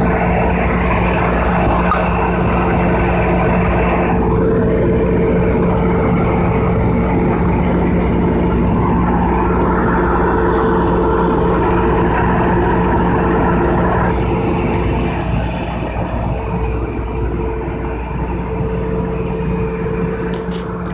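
Large 3500 kVA generator set running loud and steady under a load test, with a constant deep hum. About two-thirds of the way through it becomes somewhat quieter and duller.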